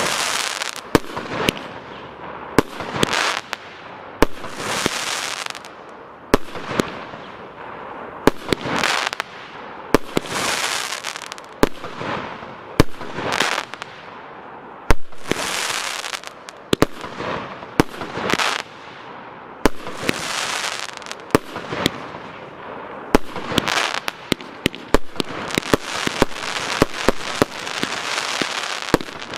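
Piromax PXB3501 Tryton consumer fireworks battery, a 36-shot 30 mm category F3 cake, firing its shots one after another. Each shot gives a sharp report, and many are followed by about a second of hissing crackle as the stars burn out.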